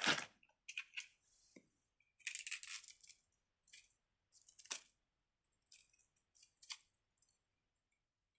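Mini Slinky being handled: scattered light rustles and clicks, with a longer rustle about two seconds in and a sharper click near the middle.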